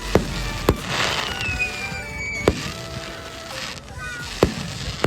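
Fireworks display: aerial shells bursting with sharp bangs, four in a few seconds, the second followed by a crackling hiss.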